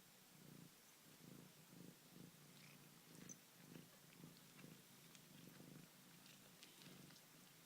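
Domestic cat purring softly, the purr rising and falling in a steady rhythm of about two to three pulses a second, with faint small clicks over it.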